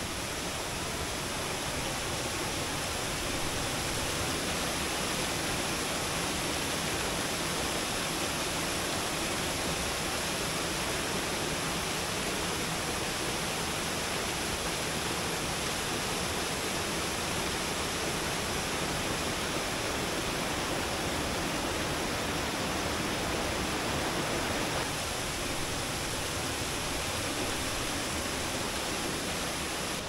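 Mountain stream cascading over mossy boulders in small waterfalls: a steady, even rush of water, running high after the end of the monsoon rains. It eases off a little near the end.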